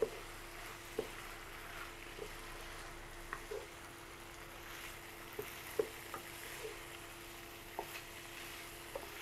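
Wooden spatula stirring shredded chicken and onion in a non-stick frying pan over a faint sizzle, with scattered light taps and scrapes of the spatula against the pan. A faint steady hum runs underneath.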